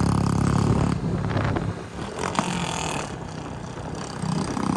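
Royal Enfield Meteor 350's single-cylinder engine running through a modified exhaust. The exhaust note is strong in the first second, drops away for a couple of seconds, then comes back up near the end.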